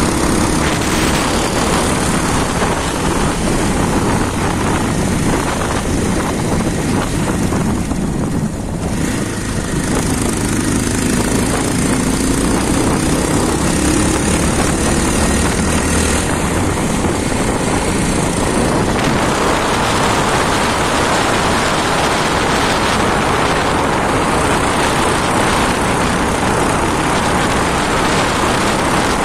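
Bajaj Pulsar 220F's single-cylinder engine running while the bike rides along at road speed, almost buried under a steady rush of wind and road noise. The rush eases briefly about a third of the way in and grows hissier about two-thirds through.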